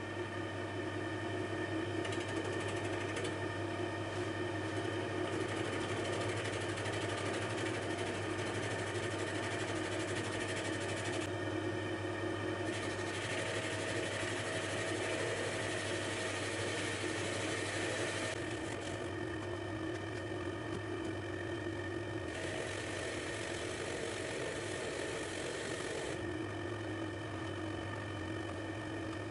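Metal lathe running steadily while a carbide-insert tool turns down a spinning steel workpiece held by the chuck and a tailstock live centre: a steady motor and gearbox hum with cutting noise. A high hiss over the top drops out three times, for one to four seconds each time.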